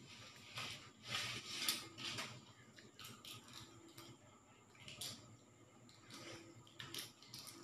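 Faint, irregular crackling and rustling of hands peeling the shells off boiled balut eggs, in scattered short bursts, the busiest stretch about a second in.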